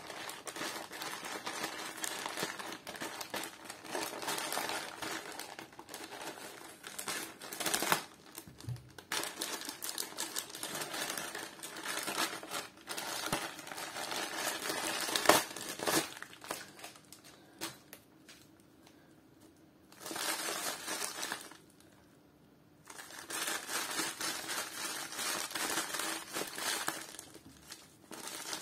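Plastic courier mailer bag crinkling in long bursts as it is torn open and handled, with short pauses and a few sharp snaps, the loudest about halfway through. Near the end, bubble wrap crinkles as the wrapped item is handled.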